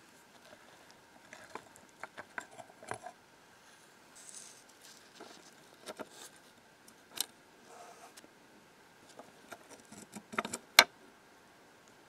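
Rusty iron parts of an antique cast iron mortise lock clicking and scraping against each other and the case as they are handled and worked loose by hand. The clicks come irregularly, the loudest a sharp metallic clink near the end.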